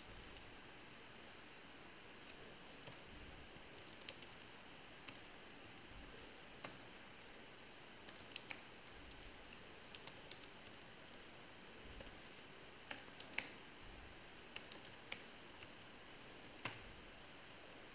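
Faint keystrokes on a computer keyboard, tapped out in single presses and short bursts at irregular intervals as commands are typed.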